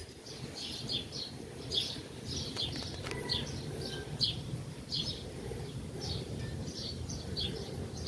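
Small birds chirping: short, high chirps repeating irregularly, about two a second, over a steady low background hum.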